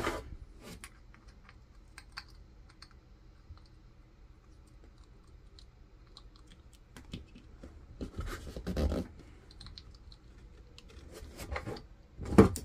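Small clicks and taps of a metal T-wrench working against a brushless motor's end bell to get the old bearing out. There is a louder scraping rub about eight seconds in and a sharp knock near the end.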